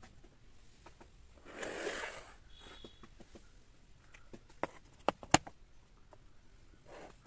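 Hard, dry coconut shell halves clicking and knocking against each other and on a rubber-topped table as they are handled and fitted together, with a few sharp taps about five seconds in. A short soft rushing noise comes about two seconds in.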